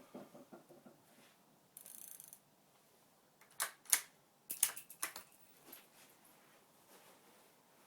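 Mechanical clicking from handling a Savage .17 HMR bolt-action rifle and its scope: a quick run of small clicks at the start, a short hiss about two seconds in, then a cluster of sharp metallic clicks and clacks around four to five seconds in. No shot is fired.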